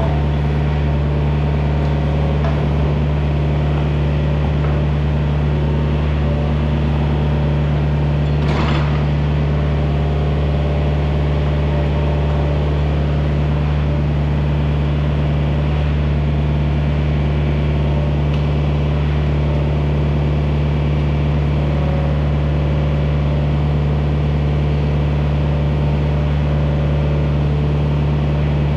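Excavator's diesel engine running steadily. A single sharp clank comes about eight and a half seconds in.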